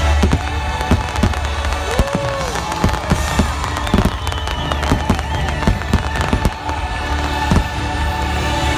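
Aerial fireworks bursting in an irregular string of sharp bangs, over show music from loudspeakers with a steady bass.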